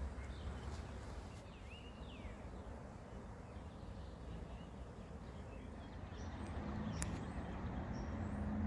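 Steady rush of a small flooded creek flowing, with a few short bird chirps about two seconds in. A single sharp click comes near the end.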